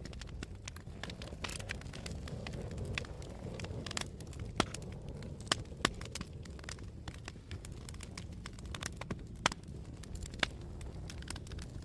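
Wood fire in a fireplace crackling: a dense run of small sharp crackles over a steady low rumble, with about five louder pops, two of them close together in the middle and one sharp pop near the end.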